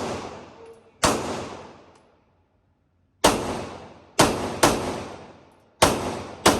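Six gunshots fired at an uneven pace, each sharp crack trailing off in a long echo, with two pairs close together in the second half.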